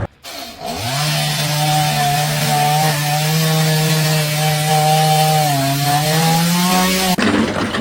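A motor-driven cutting tool, such as a power saw, running steadily: a steady low hum with overtones under a loud hiss. It starts about a second in and cuts off sharply near the end.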